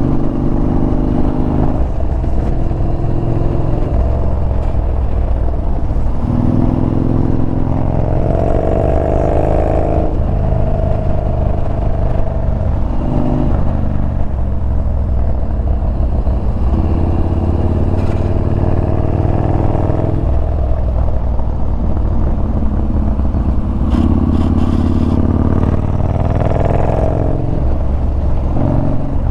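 Yamaha Bolt's air-cooled V-twin running under way on a twisty road. It rises in pitch several times as the rider accelerates out of turns and drops back between them, over a steady low rumble.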